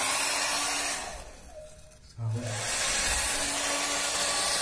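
Havells hand-held hair dryer blowing a steady rush of air. It dies down about a second in and comes back on sharply about two seconds in.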